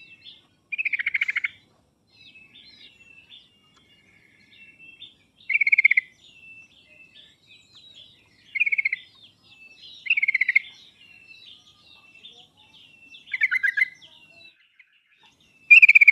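Yellow-vented bulbul (trucuk) song: about six loud, rapid chattering phrases every two to three seconds, with softer warbling notes in between.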